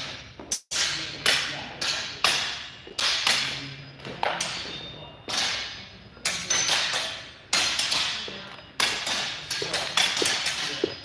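Practice swords striking, about two sharp clacks a second at uneven intervals, each ringing briefly and echoing off the hall.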